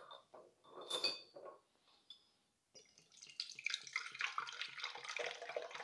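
Kombucha poured from a glass bottle through a fine mesh strainer into a glass measuring cup, trickling steadily from about three seconds in as the candy bits are strained out. A brief ringing glass clink about a second in.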